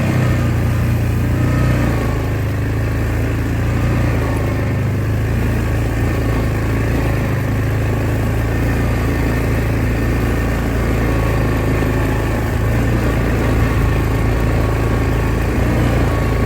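Farm vehicle engine running steadily at an even pitch.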